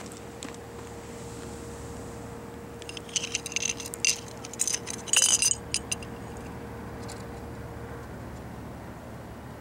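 Light clicks and clinks of a small float fishing rig being handled on pebbly concrete, coming in a quick cluster from about three to five and a half seconds in, over a steady low background noise.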